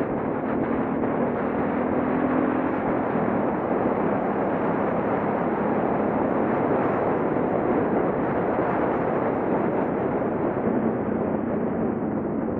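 Wind rushing over the microphone of a motorcycle riding at steady speed, with the hum of the Suzuki DR650's single-cylinder four-stroke engine faintly showing through, most clearly at the start and again near the end.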